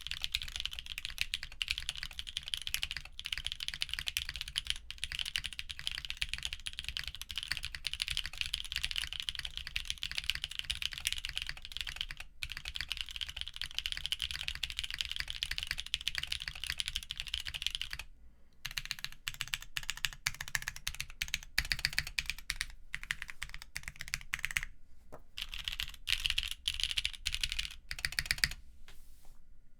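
Typing on a mechanical keyboard with lubed linear switches (Kailh Burgundy stems in MX Black housings) on a polypropylene plate with PBT keycaps: fast, continuous keystrokes that, after about eighteen seconds, thin out into separate strokes and short runs.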